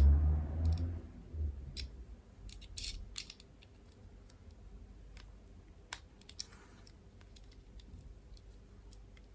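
Handling of a Leatherman MUT multitool and its small metal driver bits: scattered light clicks and taps, with a low bump at the start and a brief scrape about six and a half seconds in.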